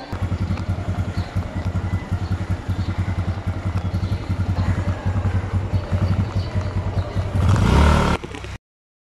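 Small motorcycle engine running with a steady, fast low pulsing. Near the end a louder rush swells for about a second, then the sound cuts off suddenly.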